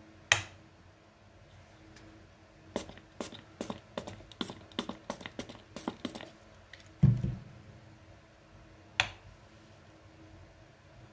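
A click near the start, then a small hand spray bottle of isopropyl alcohol pumped about a dozen times in quick succession, each squeeze a short sharp spritz. About seven seconds in comes one dull thump, the loudest sound. A USB plug then clicks into its socket about nine seconds in.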